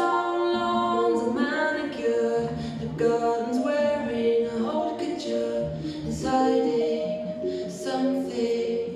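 Recorded music playing: a song with a singing voice.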